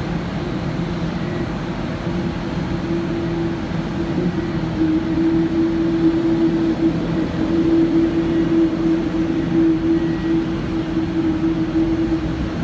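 Jet airliner engines idling during taxi. A steady roar carries a droning tone that shifts slightly in pitch about five seconds in.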